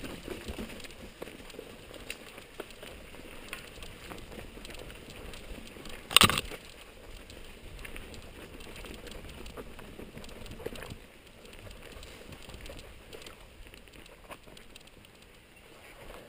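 Mountain bike rolling down a rocky dirt singletrack: tyres crunching over stones with the bike rattling, and one loud knock about six seconds in as it hits a rock. It gets quieter in the last few seconds as the bike slows.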